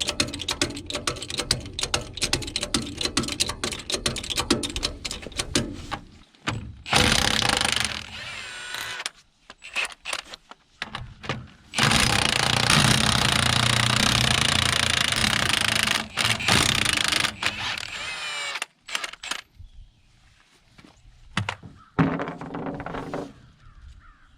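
Impact wrench hammering in bursts, the longest about four seconds, mixed with rattles and clanks of tools on the truck's wheel.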